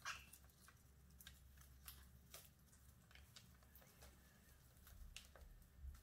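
Cockatiels pecking at and stripping oat stalks on a wooden floor: faint, scattered small clicks and rustles at an irregular pace, over a low steady hum.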